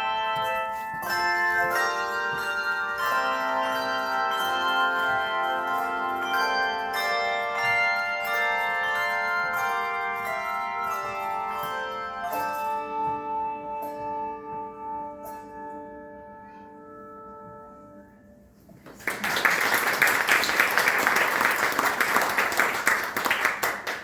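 Handbell choir playing chords, ending on a final chord that rings and fades away over several seconds. Audience applause follows about five seconds before the end and stops abruptly.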